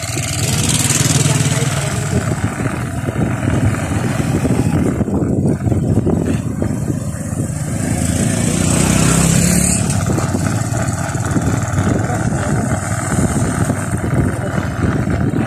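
Loud wind rumble buffeting the microphone of a moving vehicle, with the vehicle running underneath; very noisy.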